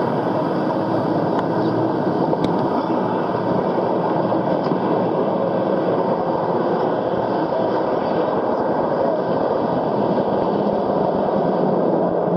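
Steady murmur of a large congregation of worshippers, many voices blending into one even din, during the pause between the two parts of a Friday sermon.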